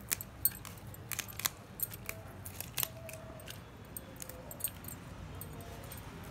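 Garlic cloves being peeled by hand: dry papery skins crackling with small, irregular sharp clicks.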